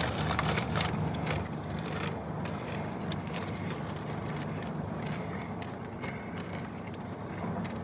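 Someone eating a Burger King taco with a hard tortilla: crisp crunching and bag-rustling clicks, thickest in the first two seconds, over a steady low hum.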